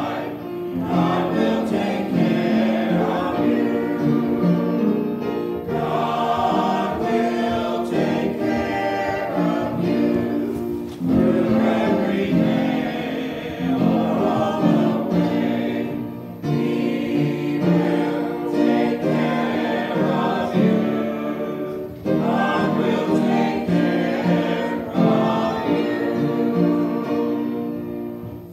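Small mixed choir of men's and women's voices singing a hymn together, in phrases with short breaks between them.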